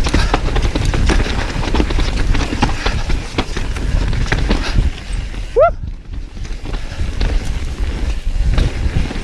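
Mountain bike descending a rough trail: tyres rolling over rocks and roots, with a constant clatter of knocks and rattles from the bike and a rumble of wind and ground noise. A brief rising squeal about five and a half seconds in.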